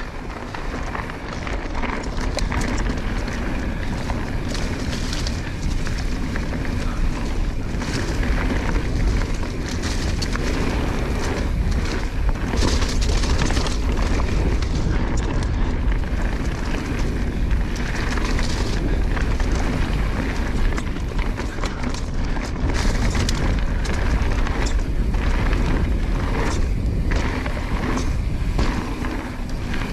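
Mountain bike riding a rocky dirt trail: a steady wind rumble buffets the microphone while tyre noise runs underneath. Frequent short knocks and rattles come from the bike jolting over rocks and bumps.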